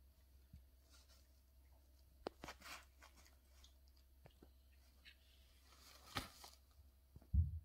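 Bulldog puppy shifting on a plastic-backed puppy pad and pushing against a latex pig toy: a few faint crinkles and scuffs, about two and a half seconds in and again about six seconds in. A dull low thump near the end is the loudest sound.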